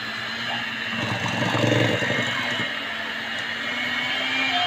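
Hand-held electric mixer running steadily, its beaters whisking butter, sugar, flour and eggs in a stainless steel bowl, getting louder for about a second and a half starting about a second in.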